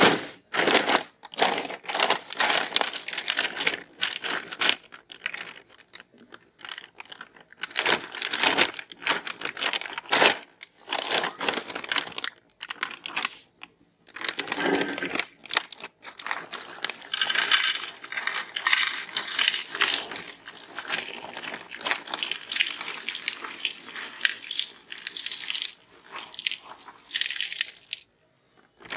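Chocos chocolate cereal crunching and crackling in uneven bursts with short pauses, as the flakes are handled and crushed.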